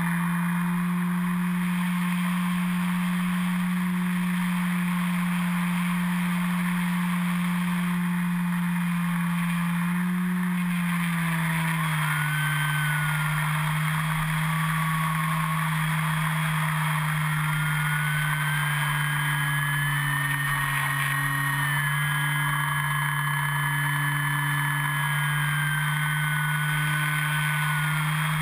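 Electric motor and propeller of an E-flite Carbon-Z Yak 54 radio-controlled plane running in flight, heard from a camera mounted on the plane: a steady propeller drone with a higher motor whine that glides up and down with the throttle. The drone drops a little in pitch about eleven seconds in.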